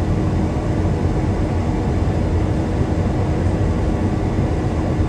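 John Deere combine harvester running steadily under load while cutting wheat, a continuous low drone with a faint steady whine over it.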